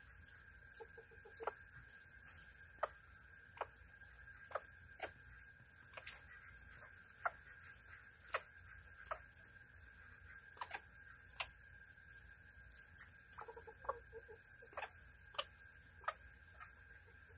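Serama bantam chickens pecking at food in a bowl: sharp irregular taps, about one or two a second. A couple of brief soft clucks come about a second in and again later on.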